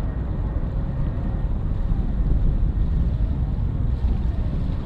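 Steady low rumble of an Atlas V rocket in powered flight, its RD-180 main engine and five solid rocket boosters all still burning about a minute after liftoff.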